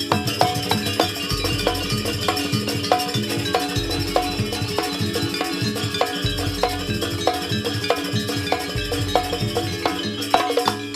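Javanese gamelan music accompanying a jaranan dance: fast, steady strikes of tuned metal gong-chimes and drums, with a deep low gong tone returning about every two and a half seconds.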